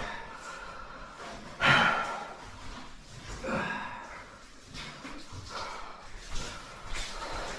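A caver breathing hard and grunting while crawling through a low, wet cave passage, with a sudden loud gasp or grunt a little under two seconds in.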